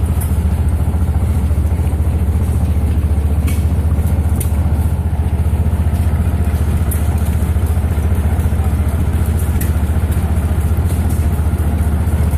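Golf cart's small engine running steadily at an even speed, heard close up from the back of the moving cart. A few light clicks and rattles come through over it.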